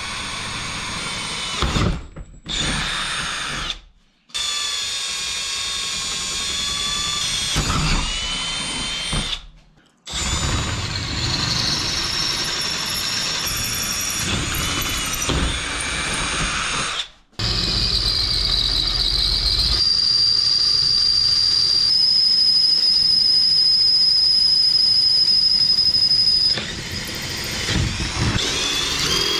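Cordless drill boring holes through an aluminium spar web and wing-root attachment bracket, running in several bursts with short stops between. In the second half the bit cuts with one long steady high-pitched whine that stops a few seconds before the end.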